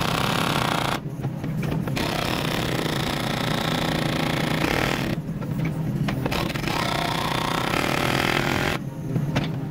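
Kubota mini excavator's diesel engine running steadily while its hydraulic breaker hammers on concrete in bursts of two to three seconds, stopping for about a second between bursts.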